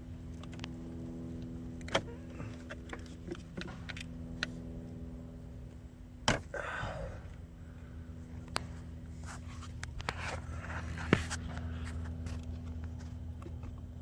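Scattered clicks, taps and a brief rustle of hands and a tool working at electrical tape wrapped around an engine-bay hose, over a steady low pitched hum.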